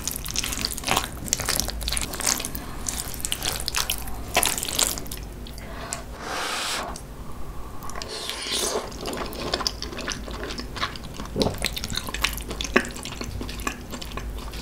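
Close-miked eating sounds: a spoon scooping saucy kimchi-tuna rice from a wooden bowl, then chewing with a run of short wet smacks and clicks.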